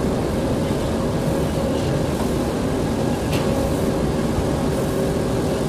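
Cement-bag loading conveyor running steadily into a truck: an even mechanical drone with a faint steady hum, and a single short click about three seconds in.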